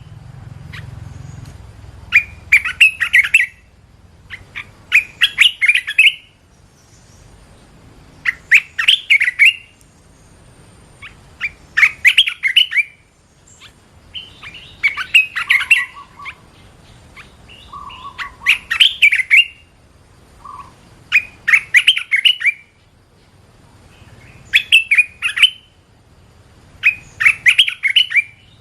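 Red-whiskered bulbul singing: short, bright phrases of quick notes repeated about every three seconds, nine phrases in all, with a few lower notes mixed in around the middle.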